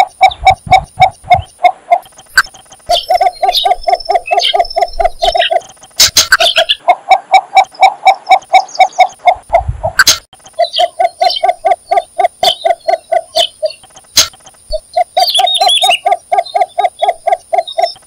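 Cinnamon bittern calling: fast runs of short, clucking notes at about five a second, each run lasting a few seconds with brief pauses between. Higher chirps from smaller birds and a steady high-pitched whine sound behind it.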